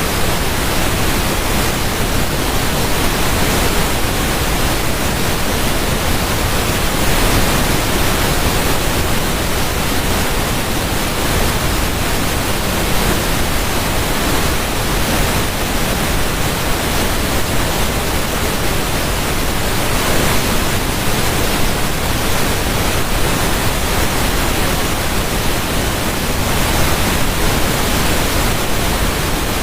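Steady rushing water, a dense, even hiss with no single drips or splashes standing out.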